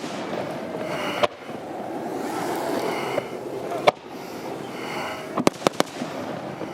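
Aerial fireworks going off: a sharp bang about a second in, another near four seconds, then a quick run of four cracks around five and a half seconds, over a steady hiss.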